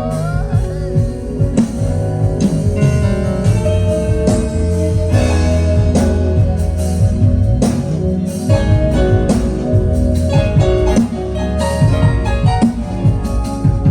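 Band playing instrumental music: a guitar and a drum kit over sustained bass notes, with frequent drum strikes.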